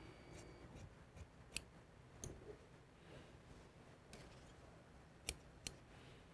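Large tailor's shears cutting suit wool, quiet apart from four sharp clicks of the blades: two about two seconds in and two near the end.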